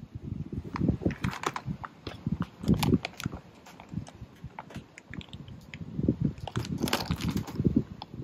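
Wind buffeting the microphone in uneven gusts, with bursts of crackling from a foil-lined snack bag being handled, three clusters of sharp crinkles.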